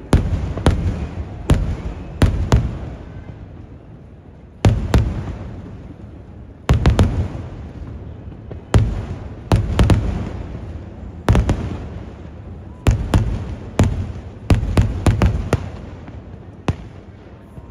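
Aerial firework shells bursting in a loud, irregular series of about twenty booms, some coming in quick clusters, each rolling off in a long echo.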